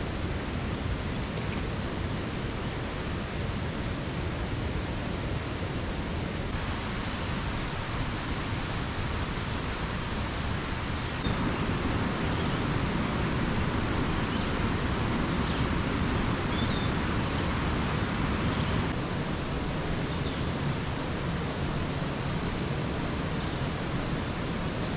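Steady rushing of a nearby river, with a few faint bird chirps now and then.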